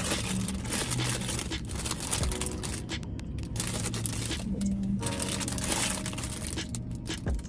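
Plastic packaging crinkling in irregular spells, with short pauses, as newly bought hair bundles are handled.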